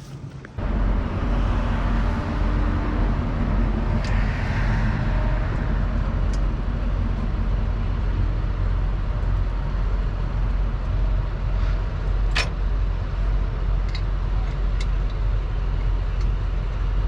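Steady low rumble of a running vehicle engine, with a sharp metallic clank about twelve seconds in.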